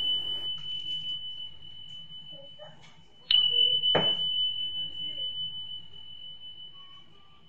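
A bright chime sound effect: one clear high ding that rings on and slowly fades, struck again about three seconds in. A short click follows about a second after the second ding.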